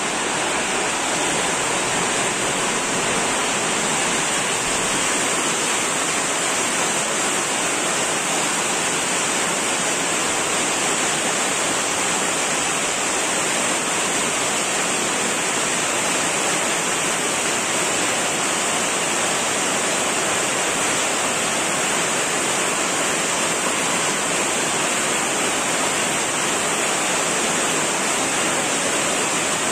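A steady, unchanging rushing hiss, even across the range like falling water, with no other sound over it.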